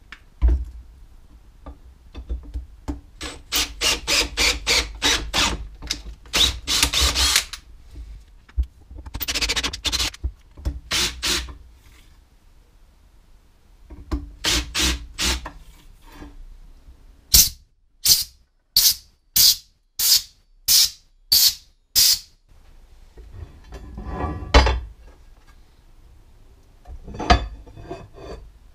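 Cordless drill/driver running in short trigger bursts, driving screws into an aluminium plate. Near the middle it gives a run of eight even bursts about two-thirds of a second apart.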